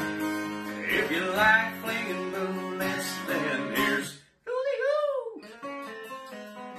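Background music led by acoustic guitar, plucked and strummed, with a wavering melody line; it cuts out suddenly for a moment about four seconds in, then resumes.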